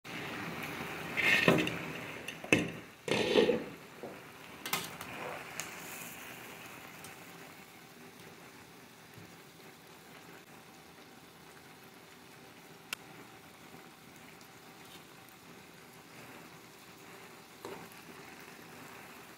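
Chicken pieces and small potatoes simmering in sauce in a pan, with a steady bubbling sizzle. In the first few seconds there are several knocks and clanks as the metal lid comes off the pan.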